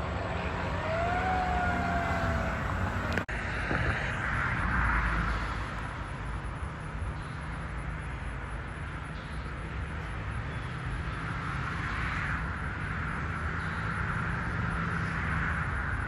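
Steady outdoor background noise, with a faint tone that rises and then slowly falls in the first three seconds. It breaks off abruptly about three seconds in, and plain outdoor noise with no tones follows.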